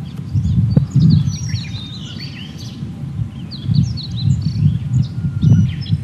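Male blue-and-white flycatcher singing: a run of short, high whistled notes, over a steady low rumble.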